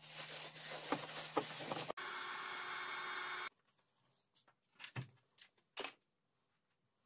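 Thin plastic bag rustling and crinkling as it is handled and pulled at. Then comes a steady hiss of about a second and a half that cuts off suddenly, followed by two or three faint knocks.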